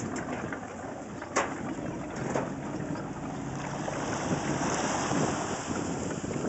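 Wind buffeting the microphone over open water, with a kayak paddle's strokes splashing in the river. There is a sharp knock about a second and a half in.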